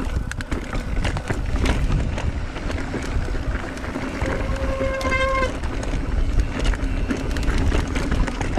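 Mountain bike riding over rough, rocky trail: continuous rumble of tyres on dirt and rock, with the bike rattling and knocking and wind on the microphone. About halfway through, a steady pitched squeal sounds for just over a second.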